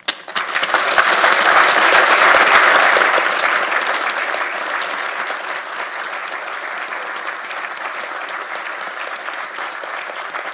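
Audience applauding, starting suddenly, at its loudest in the first few seconds and then settling to steady clapping.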